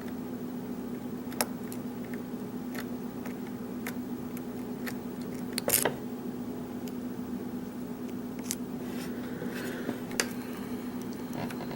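Lock pick and tension wrench working the pins of a Schlage pin-tumbler lock: faint scattered metallic clicks, with a louder cluster of clicks near the middle.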